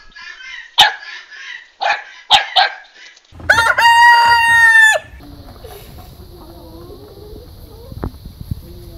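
Short, rapid yaps from a small puppy with a few sharp clicks, then a rooster crowing once, loud and drawn out for nearly two seconds. After the crow a steady low rumble follows, like skateboard wheels rolling on concrete.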